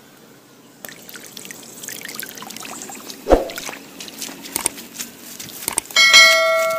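Homemade RC boat's propeller churning the pond water: a crackling, splashing trickle that builds from about a second in, with a loud thump about three seconds in. Near the end a bell-like chime rings out.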